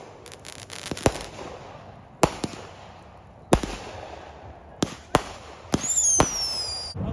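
Fireworks going off: a string of sharp bangs, roughly one a second, some with a brief echo. Near the end a whistling firework sounds, its whistle falling in pitch for about a second.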